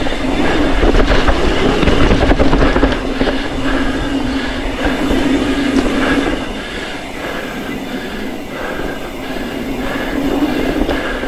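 Mountain bike riding fast down a dirt forest singletrack: tyres rolling over packed dirt and the bike rattling over bumps, with a steady hum under it. It goes a little quieter about two-thirds of the way through, then picks up again.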